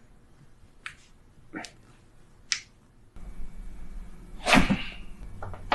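Joints cracking during a chiropractic adjustment: three short sharp pops about a second apart, then a louder burst about four and a half seconds in.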